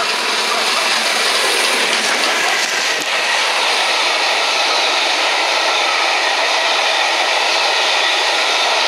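Steam-hauled passenger train passing close at speed. The locomotive goes by in the first couple of seconds, followed by a steady rush of the coaches rolling past.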